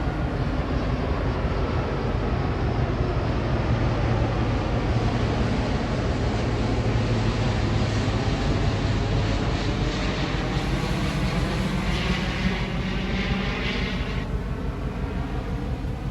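Jet airliner on approach flying low overhead: a steady, loud engine rumble with slowly gliding pitch. A brighter hiss drops away suddenly near the end.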